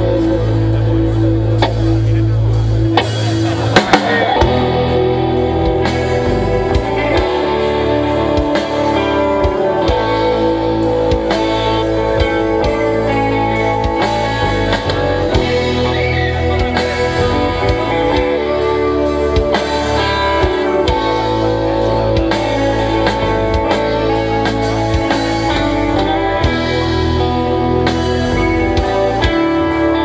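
Rock band playing live: electric guitars and a drum kit in a steady, full-volume song.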